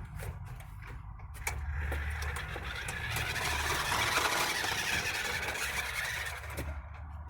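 Remote-control car's motor and drivetrain running with a steady whir. It drops away in the first second or so, picks up again, and eases off near the end.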